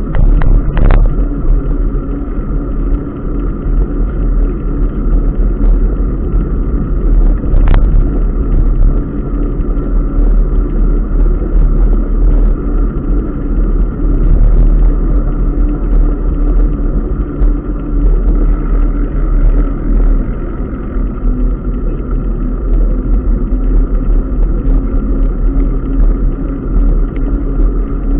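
Steady rush of wind buffeting a bicycle-mounted camera's microphone, with tyre noise from riding on a wet paved path. There are two brief clicks, about a second in and again near eight seconds.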